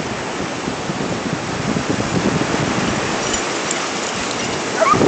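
Ocean surf breaking, with wind rushing over the phone's microphone: a steady, loud hiss and rumble. Near the end a brief rising cry cuts through.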